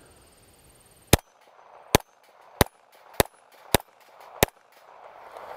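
Six pistol shots from a Walther CCP 9mm handgun, fired one at a time at a steady pace, roughly one every two-thirds of a second, starting about a second in.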